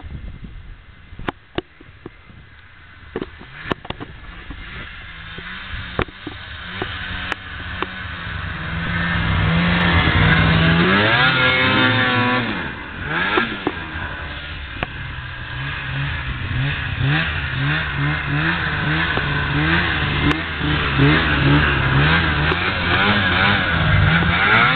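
Snowmobile engine revving hard under load in deep snow, its pitch sweeping up and down again and again. It is quieter at first with a few sharp clicks, then grows loud after several seconds and turns into choppy, repeated bursts of throttle.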